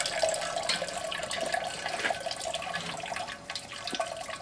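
Hot wort draining out of two mesh bags of steeped grain in a strainer over the brew kettle, a steady trickle with scattered drips falling into the liquid below.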